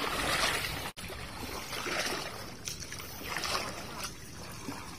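Water splashing and sloshing in uneven swells, as when a net or trap is worked and fish are handled in shallow water. The sound cuts out for an instant just before a second in.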